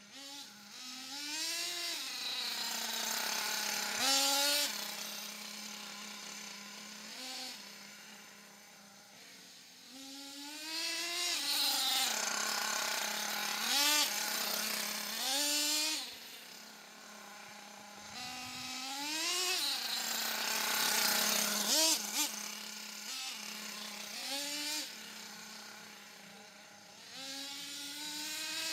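The 4.6 cc nitro engine of an HPI Trophy Truggy RC car, a Savage XL 4.6 swapped in, is running as the truggy is driven. It revs up again and again in rising, buzzing whines, each dropping back between bursts.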